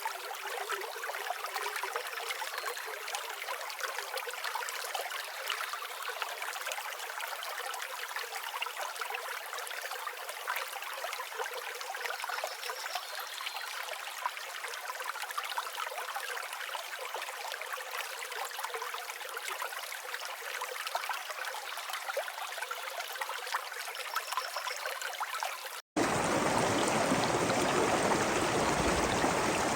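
Stream water flowing and trickling steadily. Near the end it cuts out for an instant, then a louder, deeper rush of water takes over.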